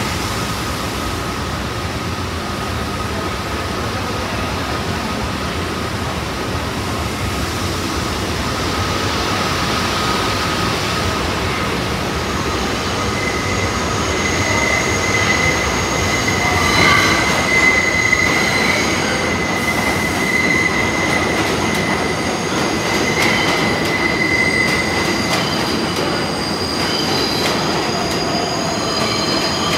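New York City subway train running through the station, its steel wheels squealing on the rails in long, high, shifting tones over a steady rumble.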